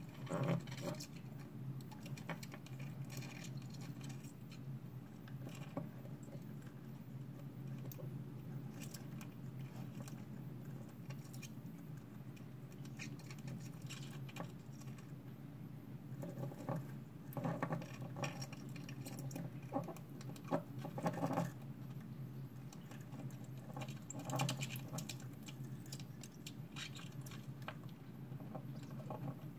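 Two purple pincher hermit crabs digging in sand substrate: irregular scratching, pattering of flung sand grains and small clicks, in clusters, over a steady low hum.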